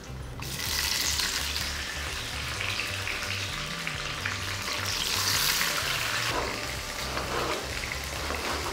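Chopped datterini tomatoes sizzling and crackling in hot olive oil in a frying pan. The sizzle starts suddenly about half a second in, as the tomato pieces hit the oil, and keeps going.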